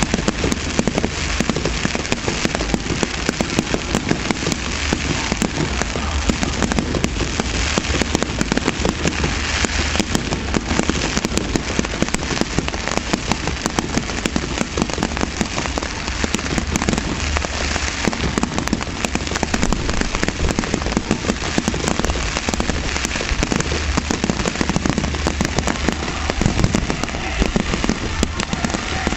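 Aerial fireworks bursting in a rapid, unbroken barrage of bangs over continuous crackling.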